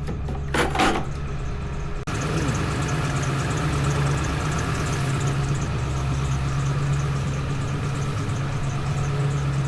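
An engine running steadily with a low hum, with a couple of short clunks in the first second and a sudden brief dropout about two seconds in.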